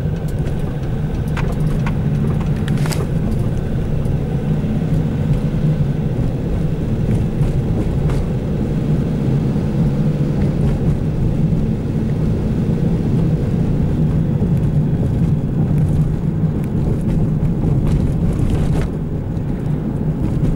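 Steady engine and road noise from inside the cabin of a moving vehicle, a constant low hum, with a few light clicks in the first few seconds.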